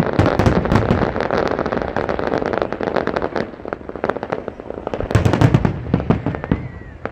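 A fireworks display going off: a dense run of crackling and popping, with a cluster of louder bangs about five seconds in.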